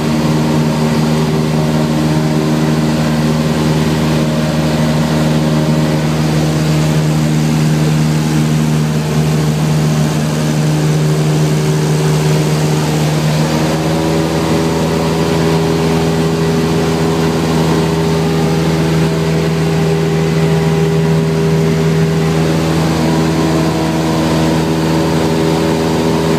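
Cessna 172 Skyhawk's piston engine and propeller droning steadily, heard from inside the cockpit. The pitch shifts up slightly about halfway through.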